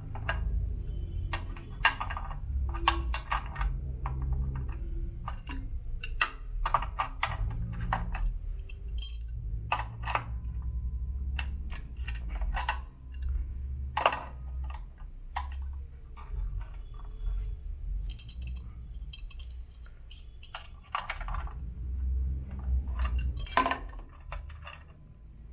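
Metal hand tools clicking and clinking on nuts and bolts as the side nuts on an elliptical trainer are loosened, in irregular sharp knocks with low handling bumps beneath.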